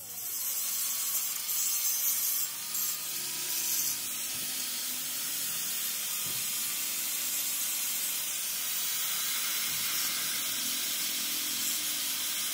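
Electric angle grinder with an abrasive disc grinding the metal of a truck differential housing: a steady, hissing grind that starts suddenly and holds evenly, with a faint motor whine underneath.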